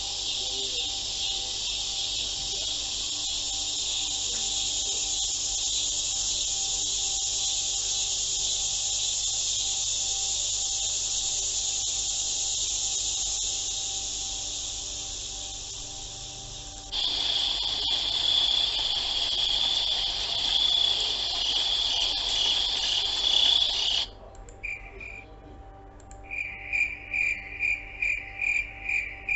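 Insects chirring: a steady high-pitched drone that switches abruptly about two thirds of the way through to a louder, purer trill, which stops suddenly. Near the end it gives way to a cricket's rhythmic chirping, about two to three chirps a second.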